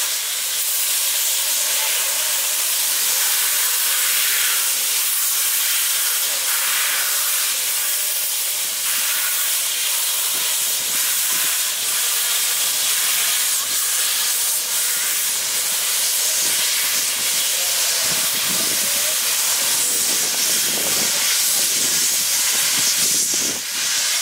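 MÁV Class 424 steam locomotive venting steam from its cylinder drain cocks as it moves off, a steady hiss.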